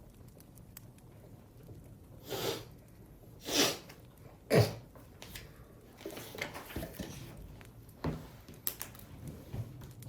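A person coughing three times, about a second apart, followed by fainter short sounds.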